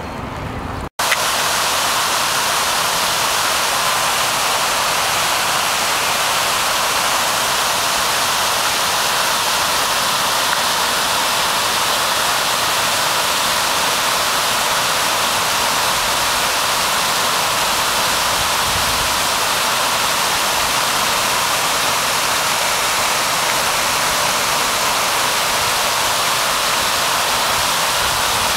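Buckingham Fountain's many water jets spraying and splashing into its pool: a steady, loud rush of falling water that starts abruptly about a second in.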